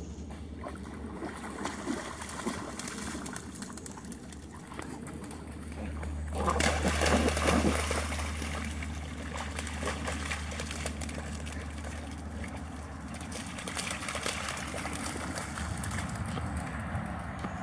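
Labrador dogs splashing and wading through shallow pond water. The splashing is loudest about six to eight seconds in, over a steady low hum.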